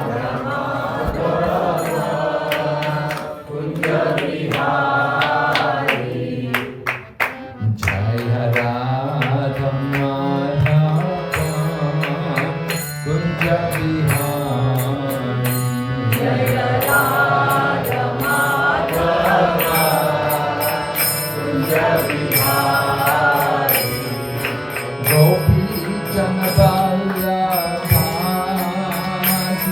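Devotional mantra singing with instrumental accompaniment: voices on a sustained melody over held chords, with percussion striking a steady beat.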